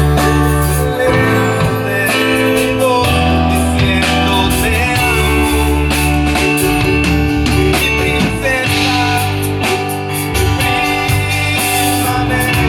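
A band playing live through a PA during a sound check: bass, guitar and drums, with some singing.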